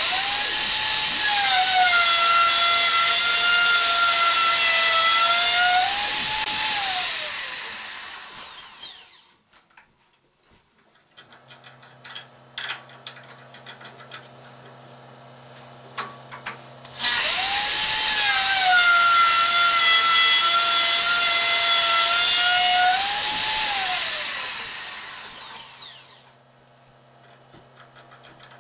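Wood router cutting a spiral groove into a wooden pepper-mill blank, run twice. Each run starts with a rising whine, holds a steady high whine for about six seconds, then winds down. Between the two runs come small clicks and a faint low hum.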